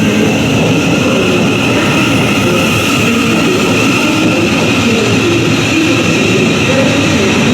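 Thameslink Class 700 Desiro City electric multiple unit running through the platform: a steady whine over continuous rumbling wheel and rail noise.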